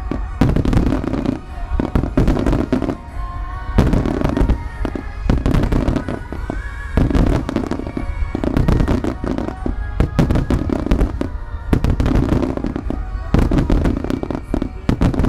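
Fireworks finale barrage: aerial shells and low fan-shaped starmine fireworks bursting together, their cracks and booms overlapping densely, many a second without a break.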